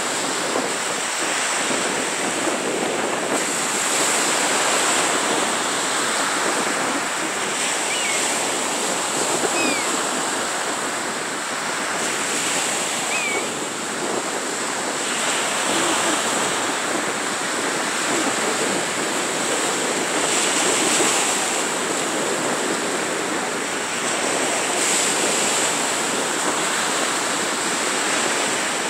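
Small Gulf of Mexico waves breaking and washing up a sandy beach: a steady wash of surf that swells and eases every few seconds.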